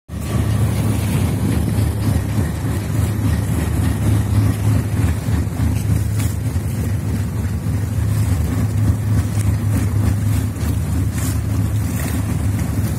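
Motor boat engine running steadily under way, a low drone, with water rushing past the hull.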